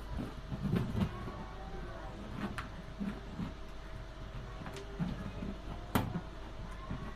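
Balloons being handled: irregular soft rubbery thumps and small clicks, with one sharper snap about six seconds in.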